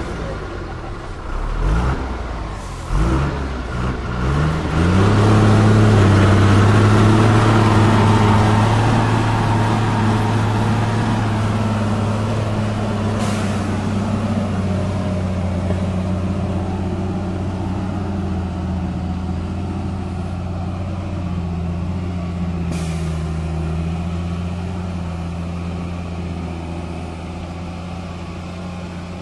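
Diesel engine of a timber-laden Tata 4x4 truck pulling up a steep, muddy slope. After a few uneven seconds it revs up about five seconds in, then runs steady and loud under load and slowly fades as the truck moves off. Two short sharp sounds cut in, one about halfway and one later.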